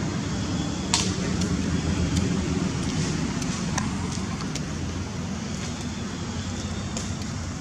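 Steady low rumble of a motor vehicle's engine running, with a few sharp clicks over it, the loudest about a second in.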